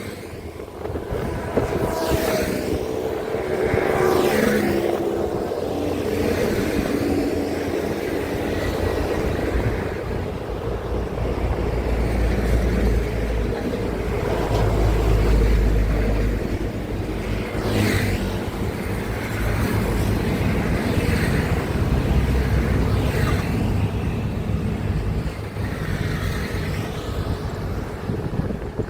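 Highway traffic with trucks passing close by: a continuous engine and tyre rumble, heaviest around the middle, with several vehicles swelling past in turn.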